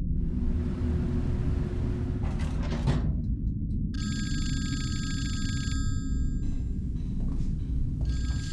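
Red rotary telephone's bell ringing: one ring of nearly two seconds about halfway through, and a second ring starting near the end. A steady low drone runs underneath.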